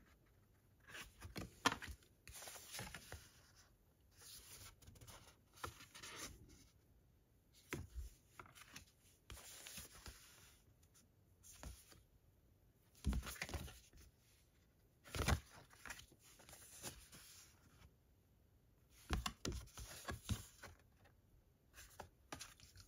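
Thick printed cards being handled and gone through one by one: irregular rustling and sliding of card, with a few sharper knocks.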